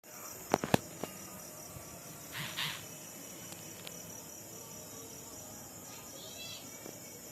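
Night insect chorus: a steady high-pitched trilling with an evenly pulsing note, like crickets. A few sharp clicks come in the first second, and a short hissing burst about two and a half seconds in.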